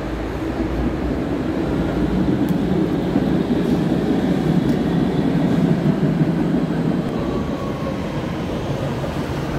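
Low, steady rumble of a passing vehicle on the street below, building to its loudest in the middle and easing off toward the end.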